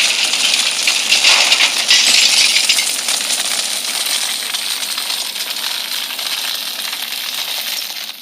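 A dense, continuous rattle of many small hard objects clinking together, slowly fading.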